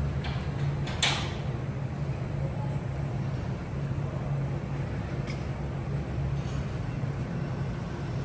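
Vehicle engine running at a steady pace with road noise, and one sharp click or knock about a second in.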